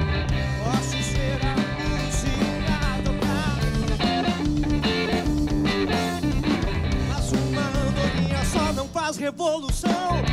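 A live rock-blues band playing: electric guitar, electric bass, drums and lead vocals together. Near the end the bass and drums drop out for about a second, leaving a single wavering line, before the full band comes back in.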